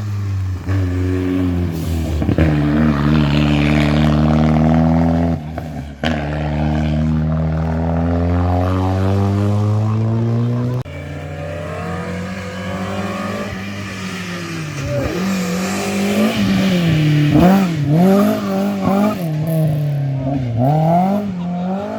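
Rally car engines at full throttle: an engine note climbing steadily under hard acceleration, with a short lift around five seconds in. After an abrupt change about eleven seconds in, an engine revs rapidly up and down as the throttle is worked.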